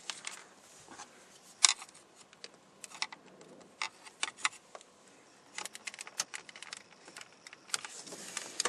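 Scattered sharp clicks and light clattering of hard plastic and metal parts being handled while taking apart a pickup truck's interior door panel and its switch housings. The loudest click comes about a second and a half in, with quick runs of clicks later on.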